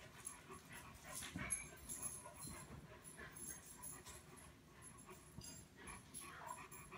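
German shepherd panting quietly.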